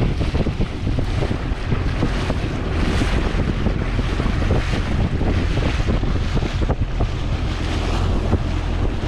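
Steady wind buffeting the microphone over water lapping around a small boat on a rippled lake.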